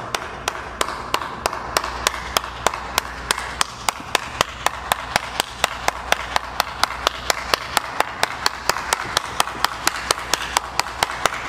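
One person clapping their hands in a steady, even rhythm, about three claps a second, with a steady hiss behind it.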